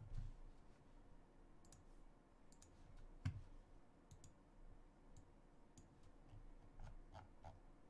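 Faint, scattered clicks over near silence, with one louder knock about three seconds in.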